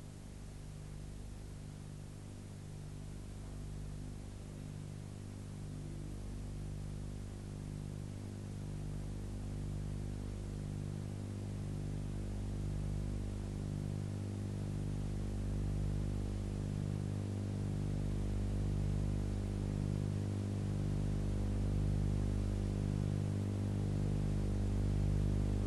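Low, steady synthesized drone with a soft pulse about once a second, slowly growing louder: background music.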